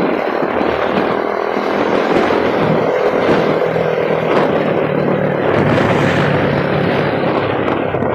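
A vehicle engine running hard at speed under full throttle, a steady low engine tone under a dense rush of wind and road noise.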